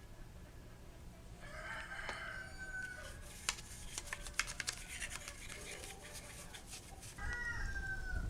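A bird calls twice, each a drawn-out call that slides down a little at the end: once about a second in, and again, louder, near the end. Between the calls comes a run of sharp, irregular clicks and taps.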